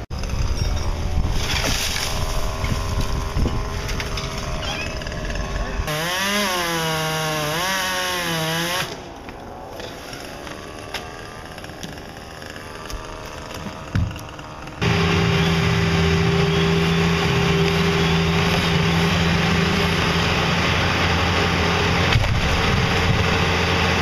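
Chainsaw running and revving up and down, then a quieter stretch. About fifteen seconds in, a steady engine drone begins and runs on unchanged.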